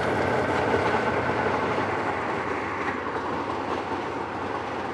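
T-55 tank on the move, its V-55 twelve-cylinder diesel engine running under load with the clatter of its steel tracks, slowly getting a little quieter.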